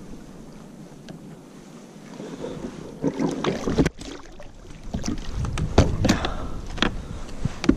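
A cod thrashing and splashing at the water's surface beside a plastic kayak as it is grabbed by hand. About three seconds in, irregular knocks and thumps begin as the fish is hauled aboard and flaps against the hull.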